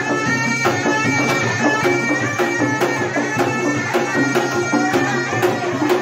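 Sundanese kendang pencak music: two large kendang barrel drums beaten in a running rhythm under a reedy tarompet (shawm) melody.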